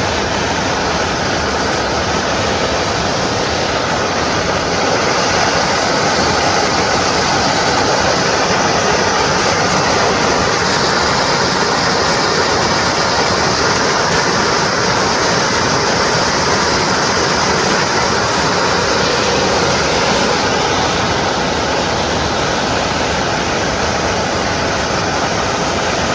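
Freshly overhauled fire-pump engine running steadily under load, driving a 1250 GPM hydrant pump, with water rushing out of the open hydrant; a little louder about five seconds in.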